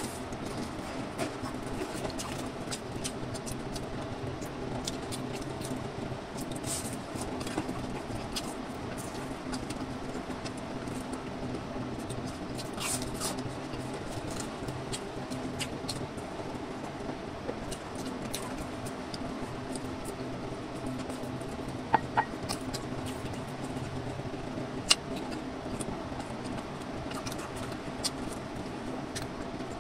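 Close-up eating sounds: chewing and crunching of fried breaded chicken nuggets, heard as many small crisp mouth clicks, with a few sharper clicks in the last third. A steady low hum runs underneath.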